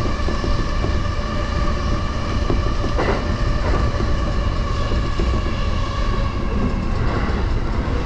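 Electric commuter train running, heard from inside the car: a steady low rumble of wheels on rails under a hum of several steady whining tones, with a short click about three seconds in.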